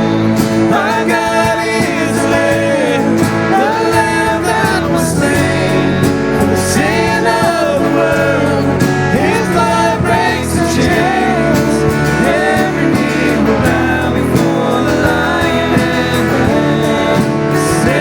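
Live church worship music: a band with guitar playing a song while a singing voice carries the melody.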